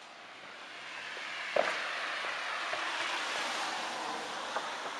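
A vehicle passing by: a rushing noise that swells and then fades, with one sharp pop about a second and a half in.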